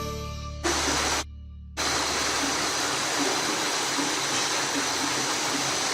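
Vegetable pakoras deep-frying in hot oil, a steady even sizzle. It drops out briefly about a second in.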